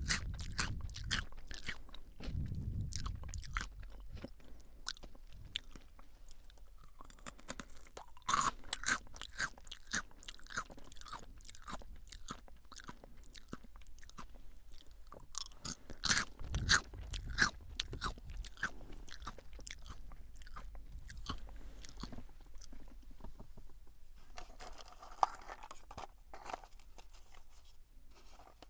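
Close-miked chewing of crunchy fried potato sticks (Calbee Jagabee, lightly salted): a run of sharp, irregular crunches as the sticks are bitten and ground between the teeth.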